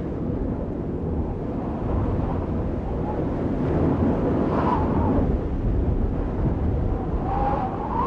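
A steady, low, rumbling whoosh sound effect, like wind or distant surf, slowly growing a little louder, with faint swirling tones about halfway through and again near the end.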